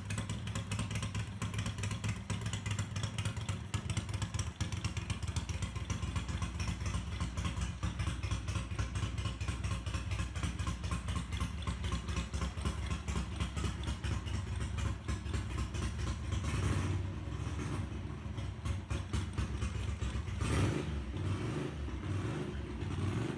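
Bevel-drive Ducati V-twin engine running at a steady speed, with two brief rises in revs in the last third.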